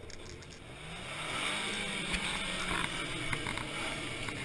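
Pickup truck engine revving up and holding under load as it struggles up a steep loose-dirt slope, with the hiss of spinning tyres throwing dirt.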